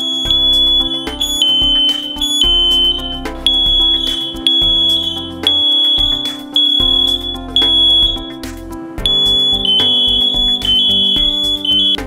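Heiman smoke alarm sounding, a loud, high-pitched beeping in repeated tones that step between two close pitches, as it has been triggered by smoke. Background music with a steady beat plays underneath.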